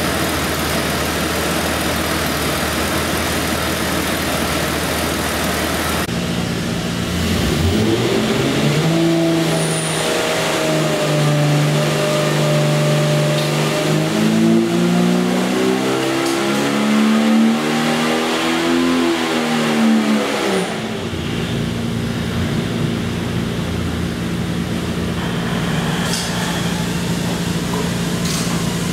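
Jeep 4.6-litre stroker inline-six running on an engine dyno. After a steady low running note, it revs up under load in a dyno pull, the pitch climbing for about twelve seconds. Around twenty seconds in it drops back sharply to a steady fast idle.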